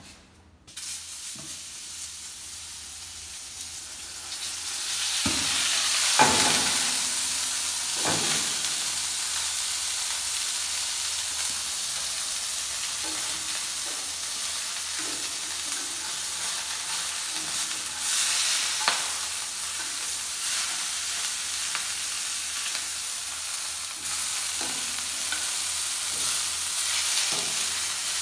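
Food frying in oil in a pan on a gas burner: a steady sizzle that comes in about a second in and grows louder over the next few seconds, then holds. A few metal clinks against the pan, loudest between about five and eight seconds in.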